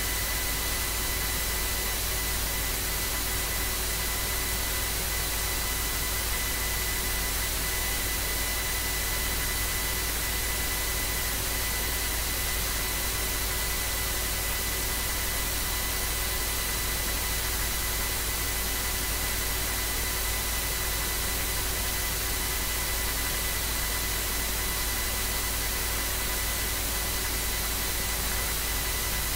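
Steady hiss with a low hum and a few thin, faint whines, unchanging throughout: the self-noise of a computer microphone recording with no other sound on it.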